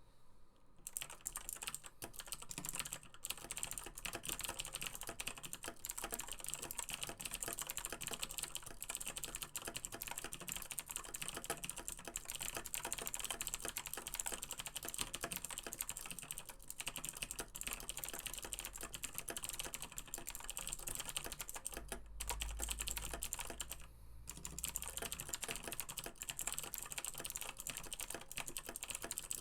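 Steady fast typing on a Razer BlackWidow Chroma mechanical keyboard with clicky Razer Green switches: a dense, continuous stream of sharp key clicks, broken by a few short pauses.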